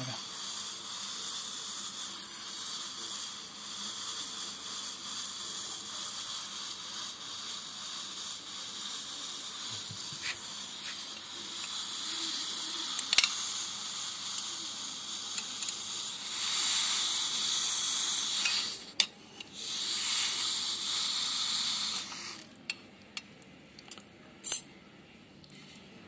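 Electric water-heater immersion element sizzling and hissing in a pot of cold water with ice: the water boils at the hot element's surface while the bulk of the water stays cool. The hiss swells louder for several seconds past the middle, dips briefly, then falls away near the end, with a few small clicks.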